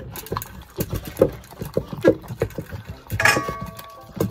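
Labrador retriever eating dry kibble from a plastic slow-feeder bowl: irregular crunching, and kibble clattering against the bowl. A short squeak comes about three seconds in.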